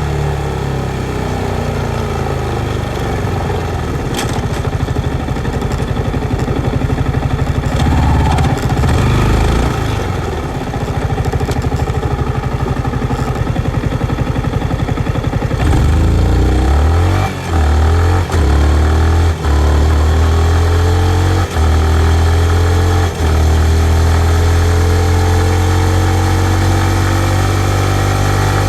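A 2019 Yamaha MT-15's 155 cc single-cylinder engine running under way at varying revs. About halfway through it pulls harder, with five short breaks in the sound as it shifts up through the gears, and the revs climb near the end.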